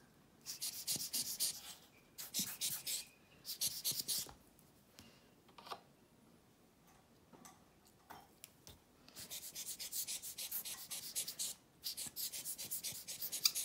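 A rubber air-blower bulb squeezed again and again, puffing air across wet alcohol ink on a paper tag to push the ink around: hissy, scratchy bursts, three short ones at first, then a longer run of them after a lull.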